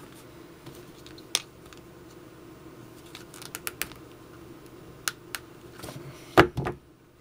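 Handling noises from lacing a leather axe sheath: scattered light clicks and ticks as the lace is worked through the holes, then two close knocks near the end, the first the loudest.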